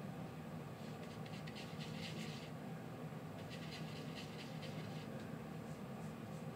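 Soft scratching of paintbrush bristles working acrylic paint, in two spells of quick strokes, over a steady low hum.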